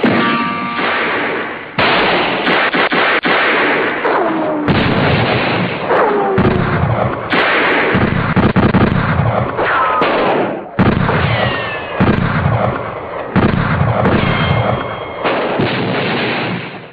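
Cartoon-style war sound effect: a continuous barrage of explosions and gunfire, with falling whistles of incoming shells dropping into several of the blasts. It cuts off suddenly at the end.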